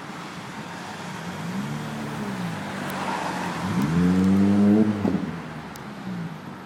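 Lotus Elise S exhaust idling steadily. It is blipped once briefly, then revved higher and louder for about a second before the throttle snaps shut and it falls back to idle.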